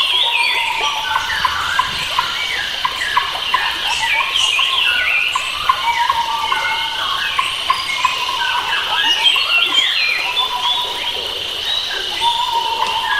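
Many wild forest birds chirping and singing at once, a dense overlapping chorus of short chirps and trills, over a steady high drone.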